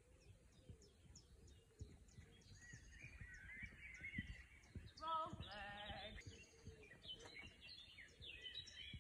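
Faint birdsong, many small birds chirping and warbling throughout, with one quavering, bleat-like animal call lasting about a second a little past halfway.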